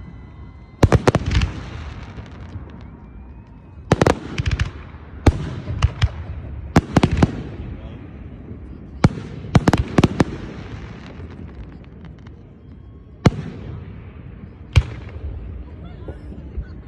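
Aerial firework shells bursting in a display: about a dozen sharp booms in clusters, the first about a second in and the last near the end, each trailing off in an echo.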